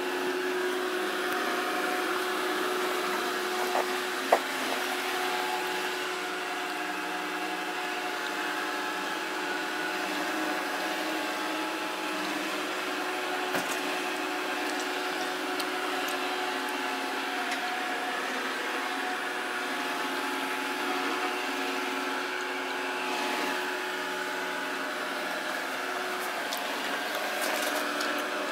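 Samsung SR8751 robot vacuum running: a steady hum of the suction motor and brushes, with several steady tones over a hiss. A sharp knock comes about four seconds in.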